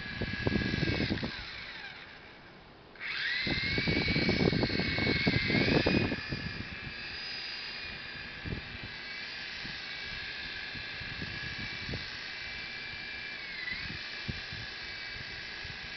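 Blade mCX2 micro coaxial RC helicopter's electric motors whining in flight. Around two seconds in the whine drops in pitch and fades, then jumps back about three seconds in. A loud low rushing of rotor wash on the microphone comes in the first second and again from about three to six seconds.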